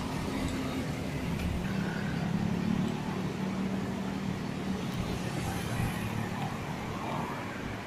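Road traffic passing close by: cars and motorcycles running along the street, a steady traffic noise with an engine hum that swells in the middle.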